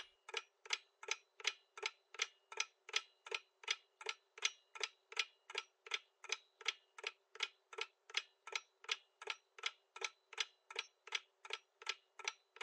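Countdown-timer sound effect: a clock-like tick repeating at an even pace, a little under three ticks a second, counting down the answer time on a quiz question.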